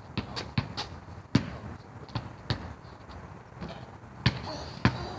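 Basketball bouncing: a quick dribble of four bounces in the first second, then single thuds at irregular gaps, the loudest about a second and a half in and again after four seconds.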